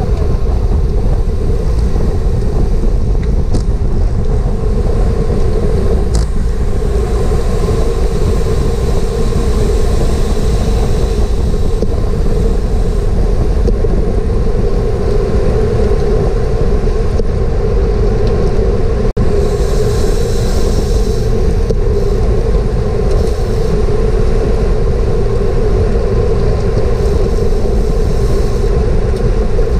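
Steady wind rush on a bicycle-mounted GoPro's microphone while riding at race speed, loud and heavy in the low end.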